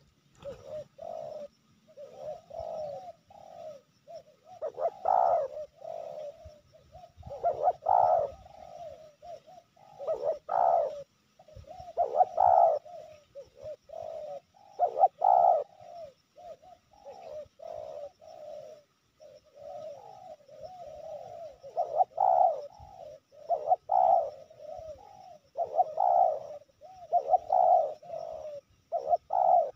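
Spotted dove (tekukur) cooing without a break in repeated coo phrases, some louder than others.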